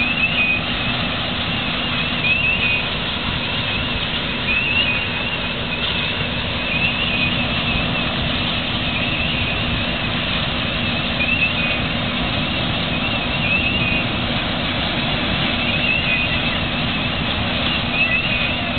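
Fire hoses spraying water fog with a steady rushing hiss, over the steady hum of an engine running. A wavering high-pitched tone comes and goes several times.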